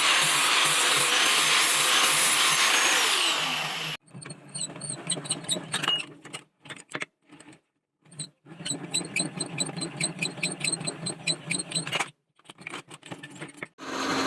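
A power tool runs steadily, its pitch dropping as it slows just before it cuts off. Then come short clips of quick, evenly repeated tool strokes, a few per second, broken by brief silences.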